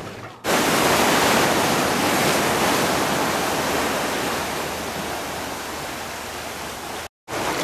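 Sea waves breaking and splashing on a stony shore right at the microphone: a steady rush of surf that starts suddenly about half a second in, is loudest at first and eases slowly, then cuts out briefly near the end.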